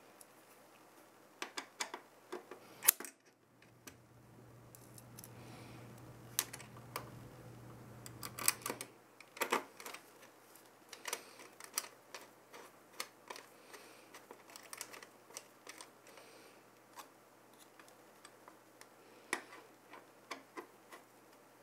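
Irregular small clicks and taps of fingers and metal mounting hardware on a motherboard as the CPU cooler's bracket screws are tightened down by hand. The loudest click comes about three seconds in, and a faint low hum runs from about four to nine seconds.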